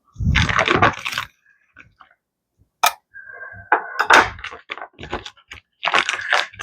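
Kitchen handling noises as cooked turkey is pulled apart and added to a container being weighed: rustling and soft knocks, with one sharp click about three seconds in.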